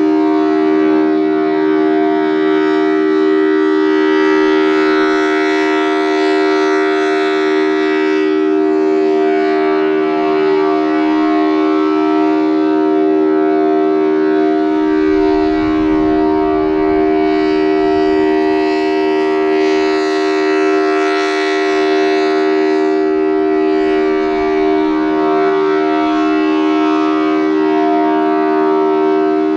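Federal Signal Thunderbolt 1000T tornado siren sounding its steady alert, a held two-note chord from its 4/5-port rotor with many overtones. The upper tones swell and fade twice as the rotating head sweeps past. Wind gusts rumble on the microphone about halfway through.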